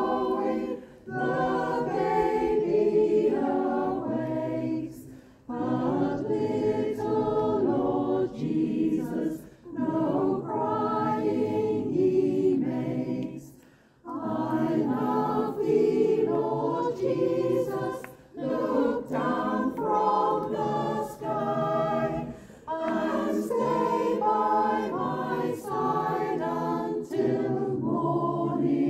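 A choir singing unaccompanied, in phrases of about four seconds separated by short breaks.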